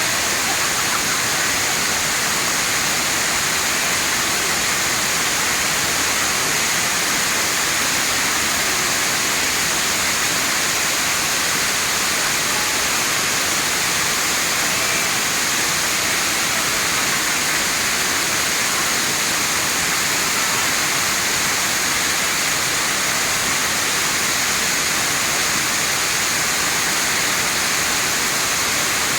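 Wang Sai Thong waterfall: water pouring and splashing with a steady, unbroken rush.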